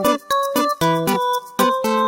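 Background music: a bright, bouncy tune of quick plucked or keyboard notes in a steady rhythm.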